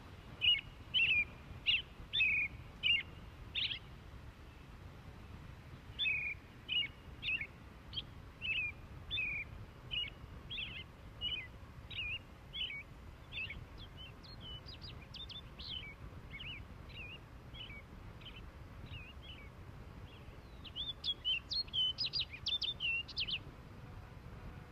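A bird chirping: short, clear notes repeated in several runs, the last run faster and louder near the end, over a faint low rumble.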